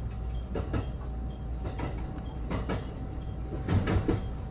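Running sound of a Maizuru Line train heard on board: a steady low rumble with a faint steady tone over it, and wheels knocking over rail joints, heaviest a little under four seconds in.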